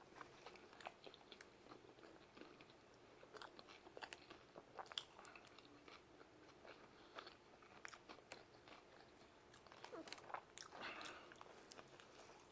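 Faint close-up chewing of a mouthful of pizza: many soft, irregular wet mouth clicks.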